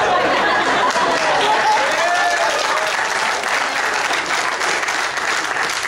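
Audience applauding, a dense patter of many hands clapping, with a few voices calling out over it in the first couple of seconds; the clapping eases off slowly toward the end.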